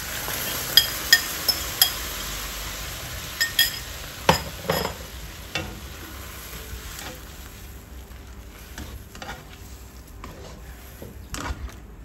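Shrimp and onion sizzling in a hot non-stick wok as salted egg yolk sauce goes in and a spatula stirs, with several sharp clinks of utensils against the pan and two heavier knocks about four seconds in. The sizzle dies down after about six seconds, leaving quieter stirring.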